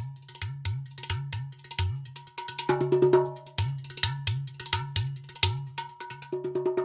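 Percussive music: sharp clicks and bell-like clinks over a low note repeating about two to three times a second.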